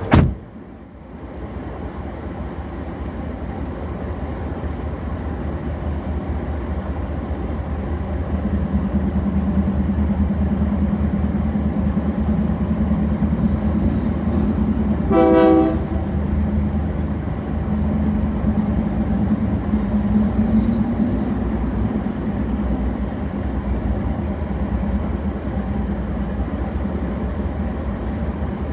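Union Pacific freight train passing close by: diesel locomotives and then freight cars rolling past with a steady rumble. About halfway through, a horn sounds once for about a second.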